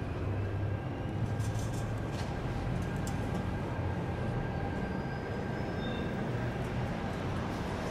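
NJ Transit commuter train moving through the station: a steady low hum under the rush of wheels on rail, with faint thin high squeals.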